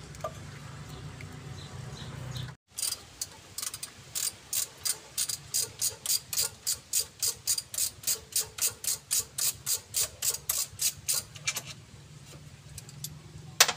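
Ratchet wrench clicking quickly and evenly, about four clicks a second, as bolts on the radiator fan and fan shroud are undone.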